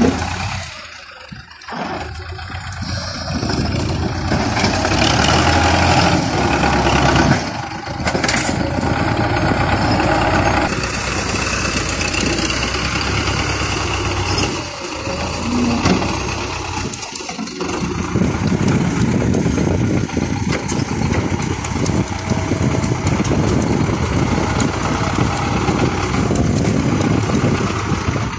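Tractor's diesel engine running as its front loader lifts and tips buckets of soil into a trailer. The sound drops out briefly a few times.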